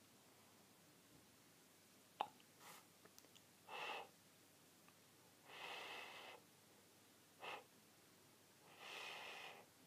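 Near silence broken by a small click and then four short breathy snorts or sniffs through the nose, the longest about a second each.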